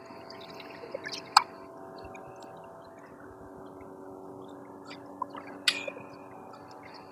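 A steady machine hum, with a few light sharp clicks, the loudest about one and a half seconds and about six seconds in.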